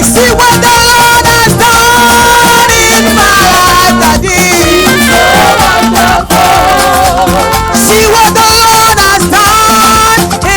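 Loud, upbeat church praise music with a steady beat and several melodic lines, played for dancing.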